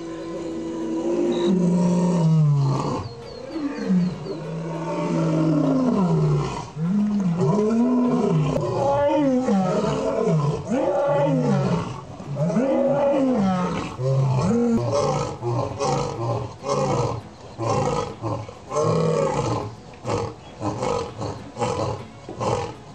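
Male lion roaring. The bout opens with long, falling moans, builds to loud roars about one a second, and tapers into shorter, quicker grunts near the end.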